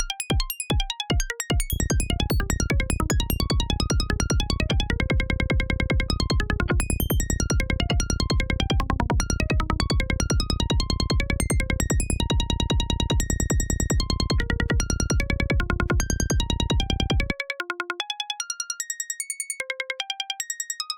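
VCV Rack software modular synthesizer patch playing forest-psytrance sound effects: a rapid stream of short blips at random pitches. After a few falling low sweeps, a low bass layer enters about a second and a half in and cuts off suddenly near the end, leaving only the blips.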